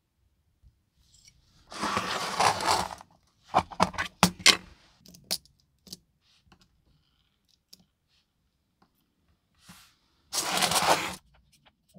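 Two short bursts of hiss, one about two seconds in and one near the end, with a quick run of clicks and clatter from small hard objects between them.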